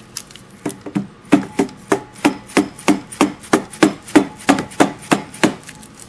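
Mallet tapping repeatedly on a Hydracell F20 pump where it meets its electric motor, knocking the pump and plate loose from the motor. The sharp knocks come about three a second and stop shortly before the end.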